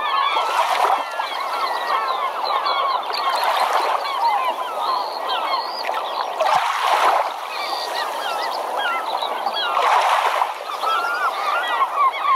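Dense chatter of many birds calling at once, with a swell of rushing noise every few seconds.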